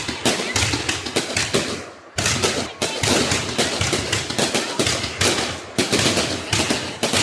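Fireworks going off in a rapid, dense run of bangs and crackles, easing briefly about two seconds in.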